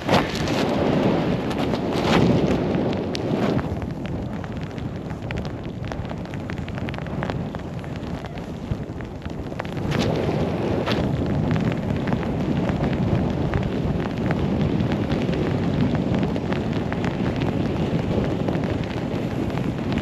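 Wind rushing and buffeting over a pole-mounted action camera's microphone while snowboarding down a run, mixed with the board sliding and scraping over the snow. A few short knocks stand out from the steady rush.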